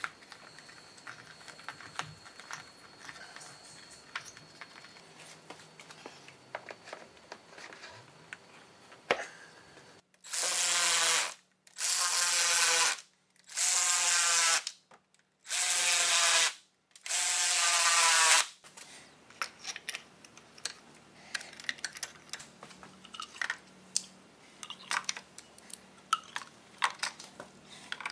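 A cordless drill/driver runs in five short bursts of about a second each, back to back, driving in the valve cover bolts on a BMW M52 inline-six. Light clicks and knocks of parts and tools being handled come before and after.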